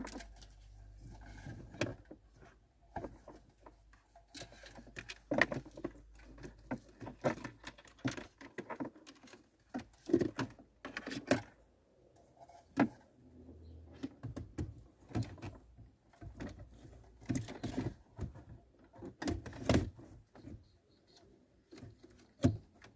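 Hands working behind a car's dashboard: irregular clicks, knocks and rustles of plastic trim and wiring as an adapter module and its microphone cable are tucked in behind the radio. A few sharper knocks stand out, the last near the end.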